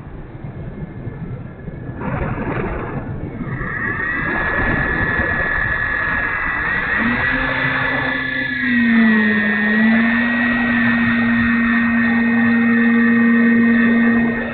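E-flite Timber electric RC airplane's motor and propeller running in flight: a steady high whine with a strong lower hum that comes in about halfway. The pitch dips slightly just after, as if the plane is passing by.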